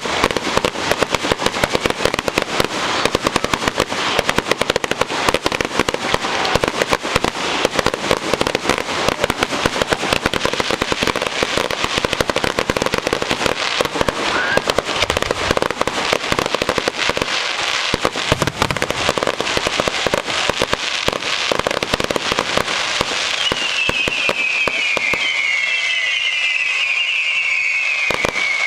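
Fireworks finale: a dense, continuous barrage of bangs and crackling, many shells going off at once. Near the end several falling whistles sound over the crackle.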